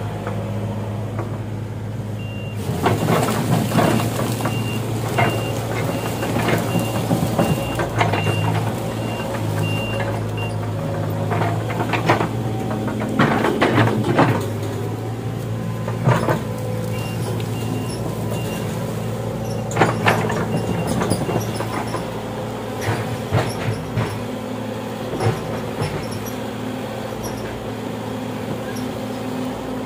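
Excavator's diesel engine running steadily. An alarm beeps about once a second for several seconds, twice over. Irregular metallic clanks and knocks sound over it.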